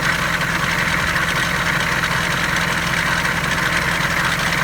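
Food truck's engine idling, a loud, steady running with no change in speed.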